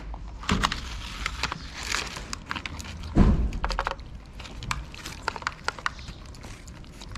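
Cats eating close up, crunching dry kibble and wet food from plastic tubs, heard as many quick, irregular clicks and crackles. A single dull thump about three seconds in.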